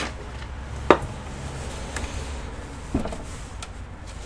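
Knocks from a PC case being handled and turned on a workbench: one sharp knock about a second in and a softer one near three seconds, over a low steady hum.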